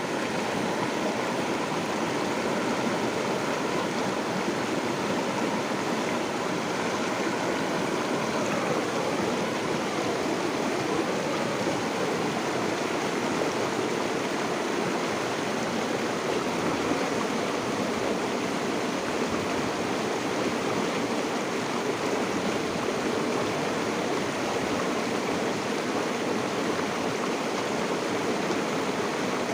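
River water flowing, a steady, even rushing that does not let up.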